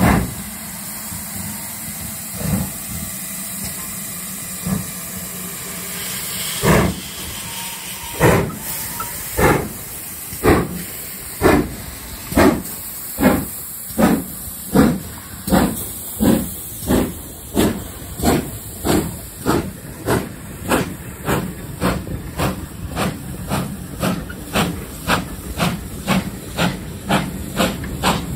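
GWR Castle class 4-6-0 No. 4079 'Pendennis Castle' starting away under steam. Its exhaust beats come a couple of seconds apart at first and quicken steadily to about two a second, over a steady hiss of steam escaping around the cylinders.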